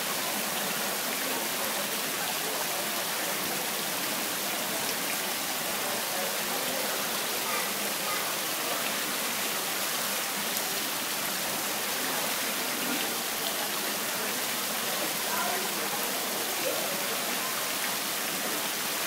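Steady rushing splash of a water jet pouring from a curved metal spout into a shallow pool.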